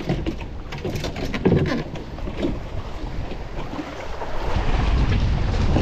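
Shallow water sloshing and splashing as a small boat is pushed by hand through mangrove shallows, with many short splashes. From about two-thirds of the way in, wind buffets the microphone with a louder low rumble.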